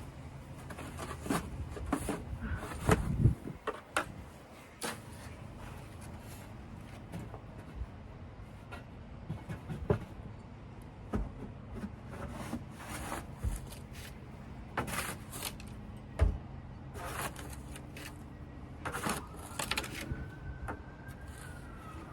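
Snow shovel scraping and knocking on pavement in irregular strokes over a steady low hum of traffic. Near the end a siren starts, rising and then falling in pitch.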